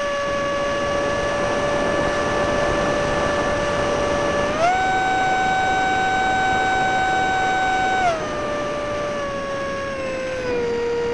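Stock electric ducted fan of a TWM J-10B RC jet on a 4S LiPo, heard from a camera on the airframe: a steady whine over rushing air. The pitch steps up about halfway through as the throttle is raised, drops back about three seconds later, then eases lower near the end.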